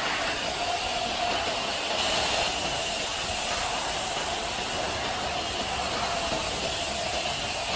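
Pressure washer spraying water in a steady, unbroken hiss.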